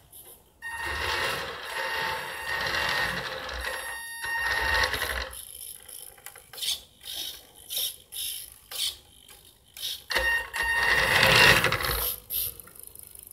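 Radio-controlled model car's motor and gear drive whining as it drives across a laminate floor: a few seconds of steady running, then a string of short throttle bursts about two a second, then another steady run near the end.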